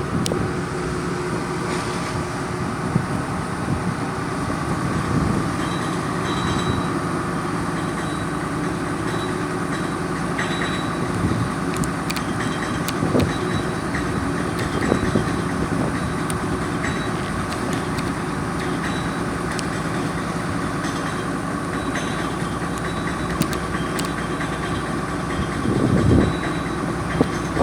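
Steady drone of the ferry Meon 2's engine running, with a few light knocks and a louder swell near the end.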